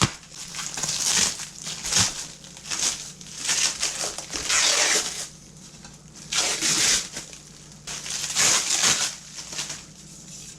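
Packing material crinkling and rustling as it is handled, in five bursts of about a second each with short pauses between.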